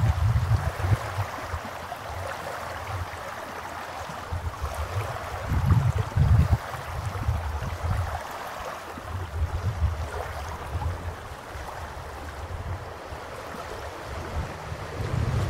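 Small waves lapping and washing over a shallow sandy shore in a steady wash, with gusts of wind buffeting the microphone now and then, strongest at the start, about six seconds in, and near the end.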